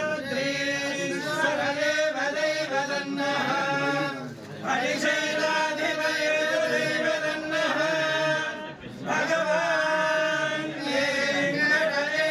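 Hindu priests chanting Sanskrit mantras of blessing in long, held phrases, with short pauses for breath about four and a half and nine seconds in.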